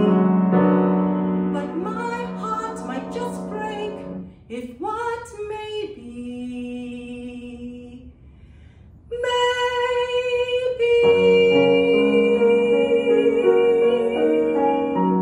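A woman singing with grand piano accompaniment. After a brief hush about eight seconds in, she holds one long note while the piano comes back in under it.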